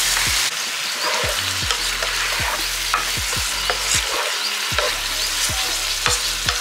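Chicken curry base of chicken, onions, tomatoes and spices sizzling in oil in a pan while it is stirred, with a few sharp clicks of the utensil against the pan.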